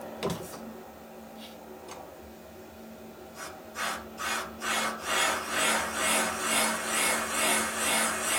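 Valve seat cutter on a Sunnen VGS-20 seat machine cutting a valve seat in a Harley panhead cylinder head. There is a sharp knock just after the start. From about three and a half seconds in comes a rhythmic rasping scrape, about twice a second, over a steady low hum.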